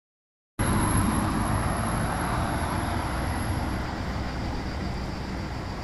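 Wind rumbling and rushing on the microphone outdoors, starting abruptly about half a second in, with a thin high whine that cuts off partway through.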